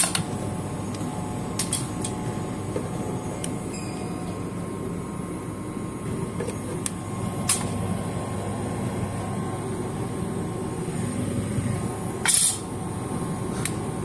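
Reach-in refrigeration unit running with a steady mechanical hum, its newly replaced fan motor turning, with a few faint clicks and a brief scrape about twelve seconds in.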